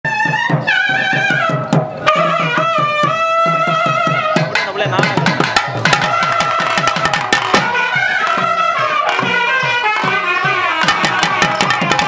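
Karakattam folk music: a nadaswaram-type reed pipe playing a winding, ornamented melody over fast thavil drumming.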